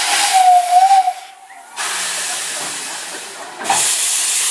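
Narrow-gauge steam locomotive blowing its whistle, one steady note that stops about a second in, followed by hissing steam that grows suddenly louder near the end as steam blows out around the cylinders.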